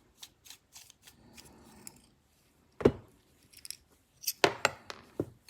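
Small metal parts of a disassembled folding knife clicking and tapping as they are handled and set down: a few light clicks, a sharper knock about three seconds in, then a quick cluster of clicks near the end.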